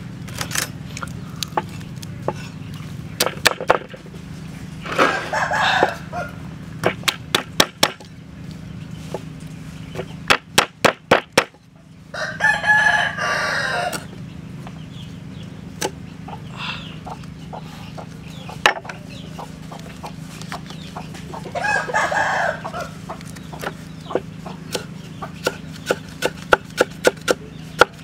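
Cleaver knocking on a wooden stump chopping block as herbs and aromatics are cut, single strikes and quick runs of chops. A rooster crows three times, about five seconds in, midway and near the end.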